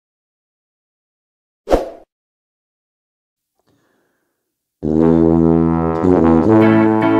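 Silence, broken about two seconds in by one short sound-effect hit. Background music comes in just before the end, with held low chords that change once.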